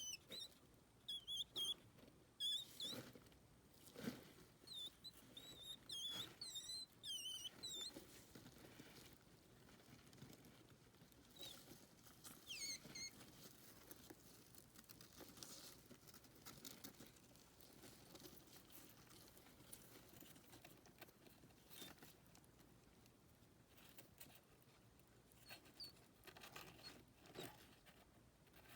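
Pet hedgehog calling with short, high-pitched squeaky chirps that bend in pitch, many in quick runs through the first eight seconds, a few more around twelve seconds in and one near the end, over faint rustling patter.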